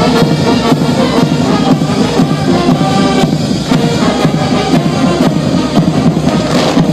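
Military band playing march music, with drums.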